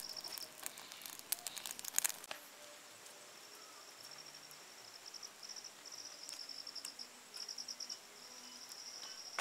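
Insects chirping in high-pitched trains of rapid pulses that start and stop every second or so. A burst of sharp crackles runs through the first two seconds, loudest about two seconds in.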